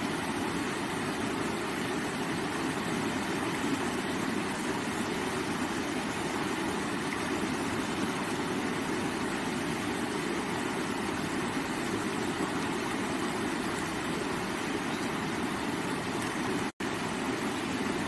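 Shallow river rushing over rocks and stones: a steady, even rush of flowing water. It cuts out for an instant near the end.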